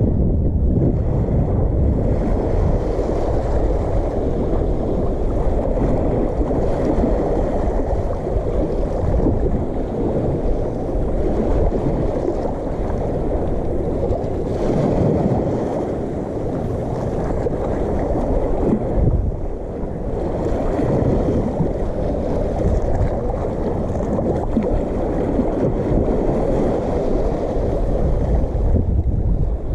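Outdoor wind and water noise: a steady low rushing of wind over the microphone mixed with the wash of water, easing a little about halfway through.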